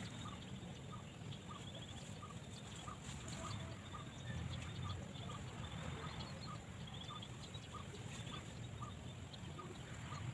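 Faint outdoor bird calls: short notes repeating about twice a second, over a low rumble.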